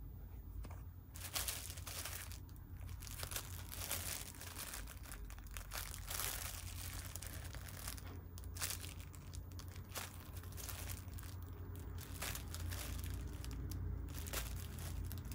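Clear plastic packets of arm sleeves crinkling as they are picked up and handled: an irregular crackle of sharp little clicks that starts about a second in.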